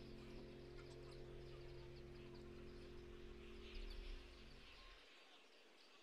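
Very faint: the last held chord of background music, which stops about five seconds in, over soft outdoor ambience with faint bird chirps.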